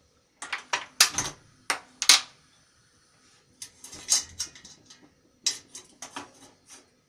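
Kitchen pots and utensils clinking and knocking in three short, irregular clusters, as milk is being heated.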